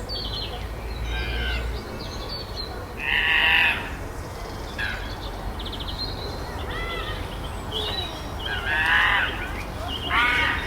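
Chimpanzees calling: a string of loud, high-pitched calls, loudest about three and a half and nine seconds in, with smaller calls between.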